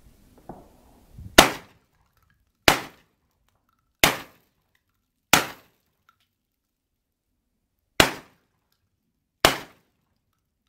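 JTS AK-style semi-automatic 12-gauge shotgun firing six loud, sharp shots, the first four about 1.3 s apart. There is a longer pause of about two and a half seconds before the last two.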